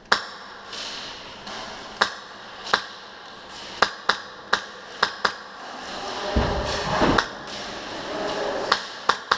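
Airsoft guns firing single shots at irregular intervals, sharp cracks with a short ring after each, ending in a quicker string of shots. A low rumble comes in about six seconds in, lasting about a second.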